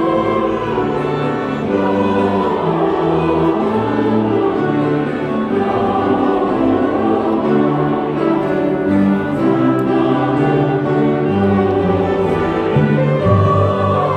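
A large church choir singing a Christmas carol in sustained, held chords, with a small orchestra of strings accompanying.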